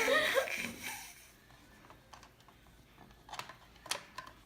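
A voice trailing off, then a few light clicks and taps of small plastic Operation game pieces being handled and set into the board.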